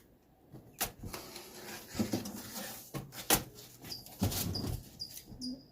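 Packing material and cardboard rustling with a few sharp knocks as grill parts are handled out of the box, the loudest knock about three seconds in, and a few short high squeaks near the end.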